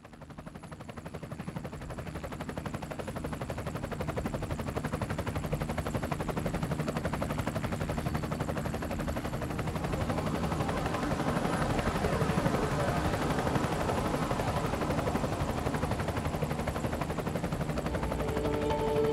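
Helicopter rotor beating in a rapid, even pulse over a steady low hum, fading in and growing louder. Music comes in near the end.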